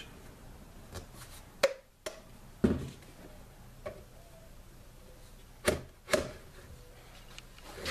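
Schedule 40 PVC pipe and tee fittings being pushed together unglued and set down on a wooden workbench: about six short, sharp plastic knocks and clacks, with quiet between them.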